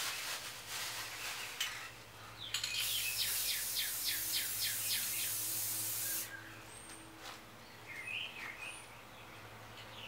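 Aerosol spray paint can hissing: a short spurt, then a steady spray of about three and a half seconds that cuts off suddenly. Birds chirp around it, a quick run of rising chirps during the spray and a few scattered calls after it.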